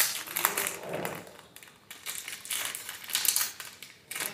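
Thin plastic packaging crinkling and crackling in the fingers as it is opened, in a run of short crackles.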